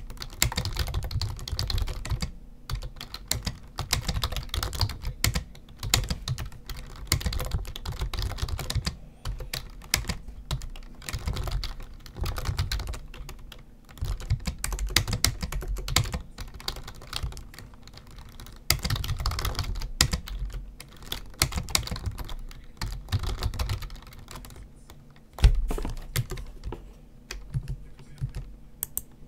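Typing on a computer keyboard: quick runs of key clicks lasting a few seconds each, broken by short pauses, with one louder click near the end.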